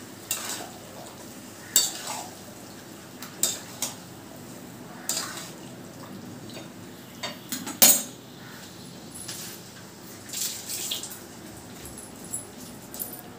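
Metal spatula scraping and knocking against a karahi in irregular strokes as marinated chicken is stirred and fried down (kosha) until the oil separates. The loudest knock comes about eight seconds in.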